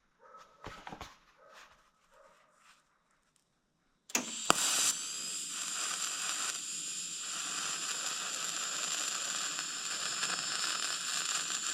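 A few light clicks, then a TIG welding arc on a copper radiator seam strikes about four seconds in and runs as a steady crackling hiss with a thin high whine.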